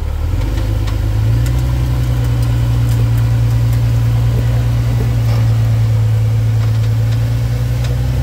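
Rock-crawling Jeep Cherokee XJ's engine pulling under load as it climbs over boulders; the revs step up about a second in and then hold steady.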